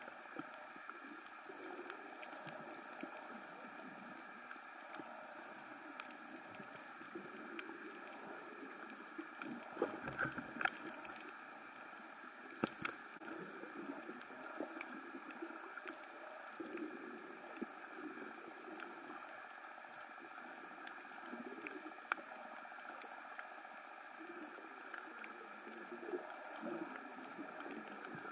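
Underwater reef ambience recorded with the camera submerged: a steady muffled hiss with scattered sharp clicks and crackles, a few louder clicks around ten to thirteen seconds in.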